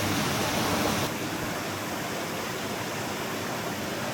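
Mountain stream flowing over rocks in a steady rush of water. About a second in, the sound turns a little quieter and duller.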